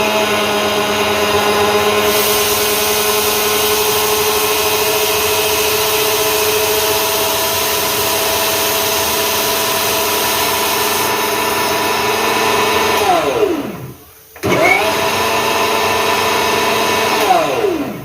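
900-watt mixer grinder's motor running at full speed with a steady whine, grinding onion and tomato gravy in its jar. About thirteen seconds in it spins down, starts again a moment later for a short second run, and winds down again at the end.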